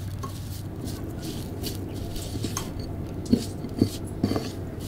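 Fingers rubbing and tossing grated coconut and chili flakes on a metal plate, a soft rustling over a low steady hum. Near the end, about three short, sharp sounds come in quick succession.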